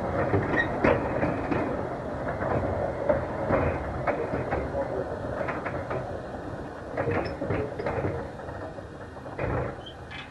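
Narrow-gauge steam train behind a Hunslet 0-4-0 locomotive running slowly on the rails. A steady rumble is broken by irregular clanks and knocks from the wheels and couplings, easing off slightly near the end.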